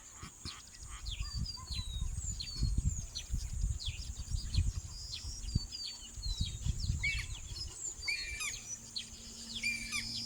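Birds chirping and calling: many short high chirps and downward-sliding notes, with a few lower, curved calls in the last few seconds, over an irregular low rumble.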